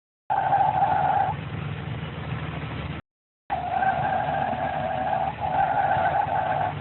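Pontiac Grand Prix 3.8-litre V6 running with a steady high-pitched squeal over its low engine hum. The squeal stops about a second in and comes back a couple of seconds later.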